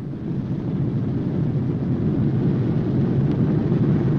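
The B-29 Superfortress's four Wright R-3350 radial engines running as a deep, steady rumble that grows louder about a second in, with the propellers set to full increase RPM after landing.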